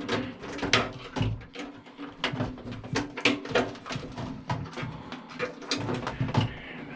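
Wire cutters snipping wires in a microwave being stripped for scrap, mixed with the irregular clicks and clatter of handling its metal parts.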